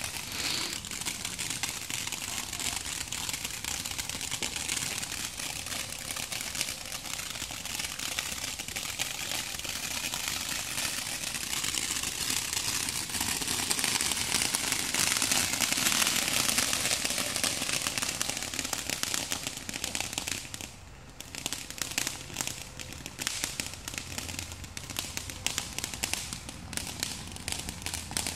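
Ground firework fountain spraying sparks with a dense hissing crackle. It swells to its loudest about halfway through, dips briefly a few seconds later, then goes on as separate sharp crackles and pops.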